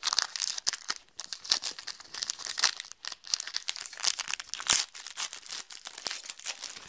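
Plastic wrapper of a football trading-card pack being torn open and crinkled by hand, a steady stream of sharp crackles.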